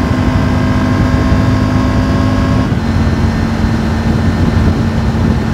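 Triumph Tiger 900's three-cylinder engine running steadily at high highway speed under heavy wind rush. Its steady drone steps slightly lower in pitch a little under three seconds in.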